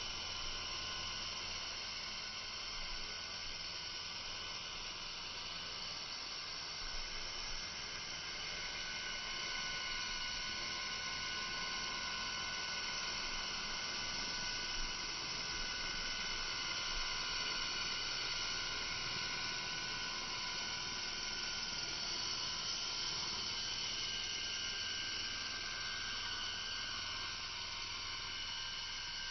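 Electric Align T-Rex 450 Sport RC helicopter running with its rotor spinning as it lifts off and hovers: a steady high whine of several tones over a hiss, the tones growing clearer about eight seconds in.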